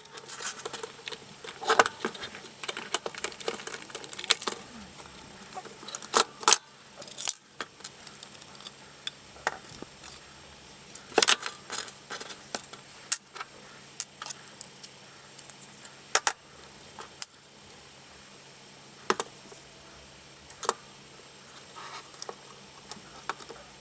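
Irregular clicks and light clatter of small hard parts being handled, as the Makita CL182FD cordless vacuum is taken apart by hand.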